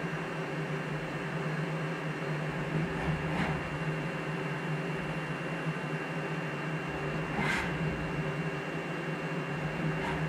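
Small CNC mill running an automatic touch-probe cycle on a gauge pin: a steady machine hum with a faint high whine, and a few brief faint swishes about every three to four seconds.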